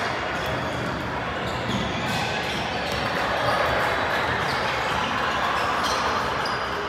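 Gymnasium din: basketballs bouncing on a hardwood court with short sharp impacts scattered throughout, over a steady hubbub of voices, echoing in the large hall.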